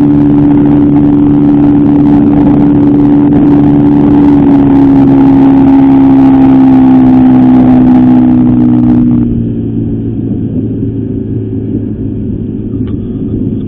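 Sea-Pro 9.9 two-stroke outboard motor running steadily under way during its break-in. About nine seconds in it is throttled back, and the engine note fades and gets quieter.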